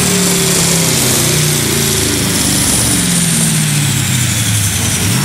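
Turbocharged Ford Coyote 5.0 V8 in a Mustang GT running on a chassis dyno at low revs, its pitch wandering and sinking, over a constant loud rush of noise. A faint high whine falls slowly throughout.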